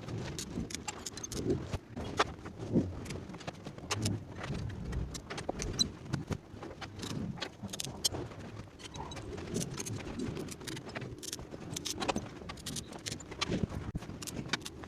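Metal parts clinking and knocking against each other many times, irregularly, a few light metallic clicks a second with some duller knocks.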